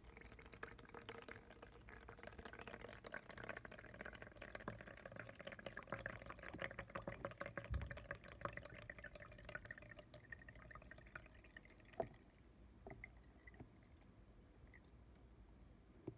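Cleaning solution poured from a bottle into the solution tank of a Hoover Power Scrub Deluxe carpet washer: a faint, trickling stream of liquid that runs for about twelve seconds, then stops, followed by a few light clicks.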